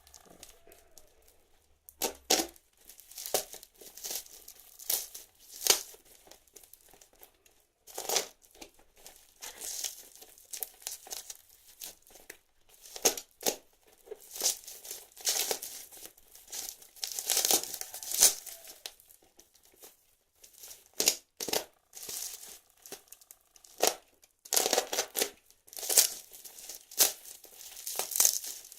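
Parcel packaging being torn and crumpled by hand in irregular bursts of ripping and crinkling, as the wrapping of a courier-delivered package is struggled open.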